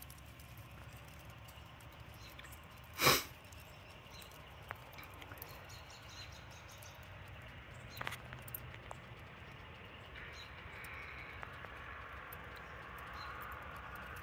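Burning charcoal in a grill ticking and crackling softly, with scattered sharp clicks and pops. A brief loud rush of noise comes about three seconds in, and a small cluster of clicks near eight seconds.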